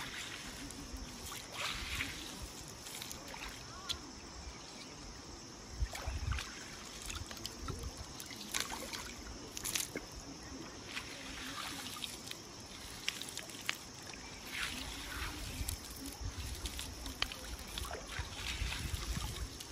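Shallow water sloshing and trickling, with scattered short clicks and knocks, over a steady high hiss.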